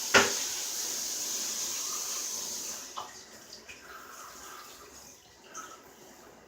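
Bathtub tap running water, with a sharp knock just after the start as the loudest sound; the running water fades out about three seconds in, leaving a few small clicks.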